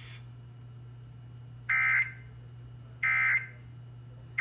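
Emergency Alert System end-of-message code from a weather radio: short, buzzy digital data bursts about 1.3 seconds apart, two of them complete and a third starting right at the end. They signal the end of the flash flood warning broadcast. A steady low hum runs underneath.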